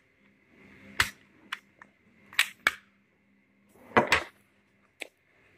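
Parts of a Marines SP02 airsoft pistol clicking and knocking as the back piece is worked off the frame by hand: several sharp clicks, the loudest about a second in, then pairs about two and a half and four seconds in.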